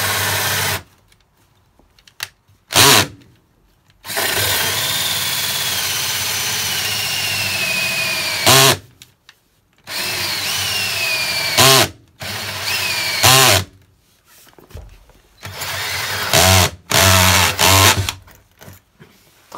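Cordless drill driving a hole saw through the bus's wooden plank floor, run in stop-start bursts. One long run of several seconds has a whine that slowly drops in pitch, followed by shorter runs and a few brief, very loud bursts.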